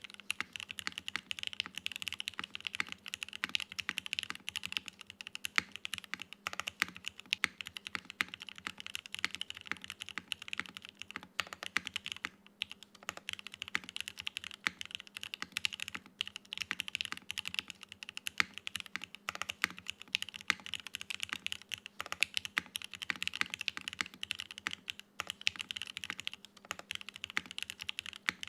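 Typing on a Geonworks Frog Mini mechanical keyboard with no foam inside. It has an aluminium plate, lubed Gateron North Pole linear switches on 55 g springs, and GMK Cojiro keycaps. Fast, steady keystrokes with a few brief pauses.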